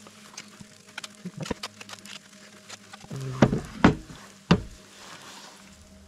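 Handling noises from food preparation: scattered light clicks, then three louder knocks in the second half, over a faint steady low hum.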